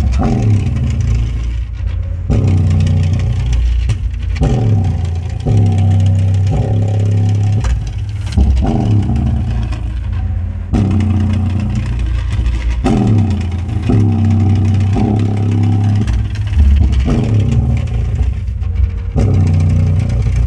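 Boxed 350 W RMS Soundfox subwoofer driven by a bass-only amplifier board, playing a song's bass line loudly from a Bluetooth module. Deep bass notes follow one another throughout, several of them sliding down in pitch. The sound is a powerful, heavy bass from the cone moving hard.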